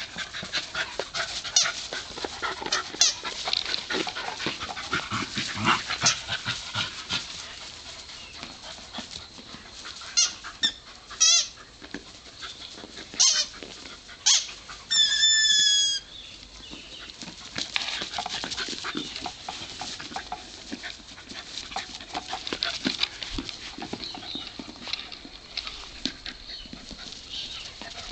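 Two dogs, a Manchester Terrier and a Foxhound, tugging at a squeaky toy: a continuous run of scuffling and chewing noises, with the toy squeaking a few times near the middle. The last squeak is a drawn-out squeal of about a second.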